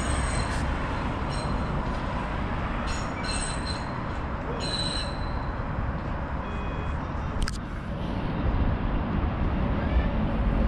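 Rail wheels squealing: several short, high-pitched squeals in the first five seconds over a steady outdoor rumble. Two brief beeps come about six and a half seconds in, and a sharp click a second later.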